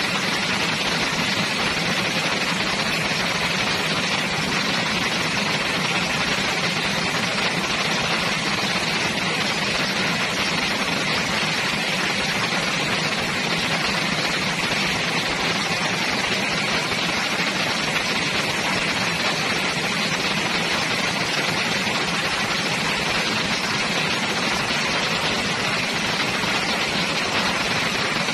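Heavy rain falling steadily: a dense, even hiss with no let-up.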